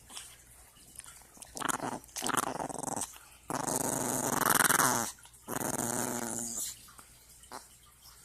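A grouchy pet dog growling: a few short growls, then two long, loud growls about halfway through.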